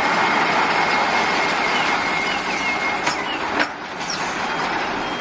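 Concrete mixer truck driving slowly, a steady noisy vehicle sound with a thin high whine through the first half and two short knocks a little after the middle.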